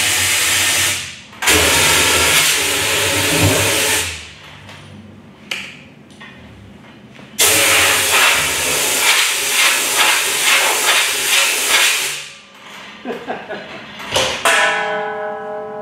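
Maddoxjets Twin Viper 100-pound-thrust diesel valveless pulsejet running loudly at full power inside a shop. It cuts out and comes back twice, in three bursts, then stops about twelve seconds in. A few knocks follow, and near the end steady musical tones come in.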